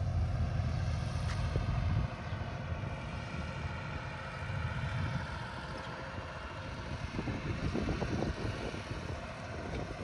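Outdoor ambience: wind rumbling on the microphone, strongest in the first two seconds, over a faint steady hum from distant traffic and machinery.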